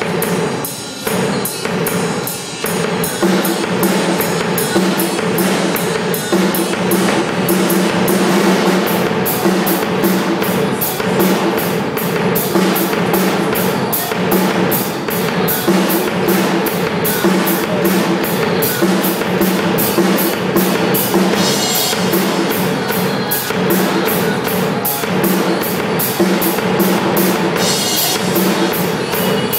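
Acoustic drum kit played live in a steady, driving beat, with bass drum and rapid, evenly spaced cymbal strikes, which grow denser after the first several seconds. Steady held musical notes sound underneath the drumming.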